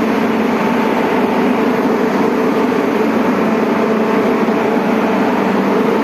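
York centrifugal chiller running in its plant room: a loud, steady machinery drone with a constant hum and no change in speed or load.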